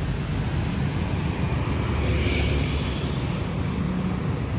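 Road traffic passing close by: a steady low engine drone from cars and a bus on the road, with a brief higher hiss about two seconds in.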